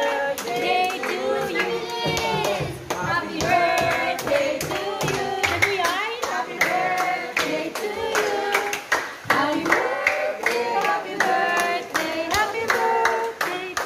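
A small group of voices singing a birthday song together, clapping along in a steady rhythm.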